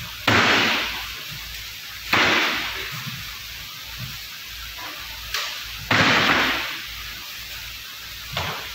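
Large empty plastic drums being set down and stacked on top of one another: three loud sudden bangs, each dying away over about a second, with a couple of lighter knocks between.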